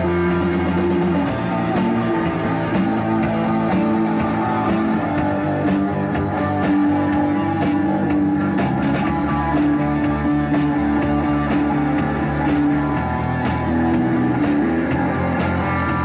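Rock band playing an instrumental passage of a song live, guitar over a drum kit, with long held notes.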